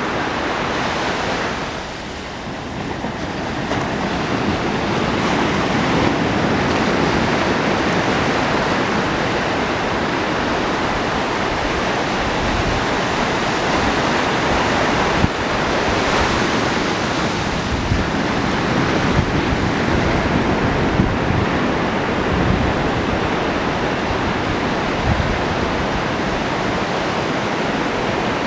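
Ocean surf washing continuously on a beach, a steady rushing wash that dips briefly and then swells again about four seconds in.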